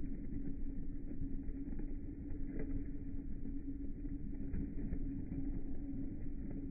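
Automatic washing machine running: a steady motor hum over a low rumble, with a few faint clicks.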